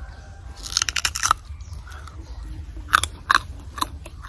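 A bite into a crisp, unripe green mango, with a burst of crunching about half a second in. Then open-mouthed chewing, with a few sharp crunches and smacks about three seconds in.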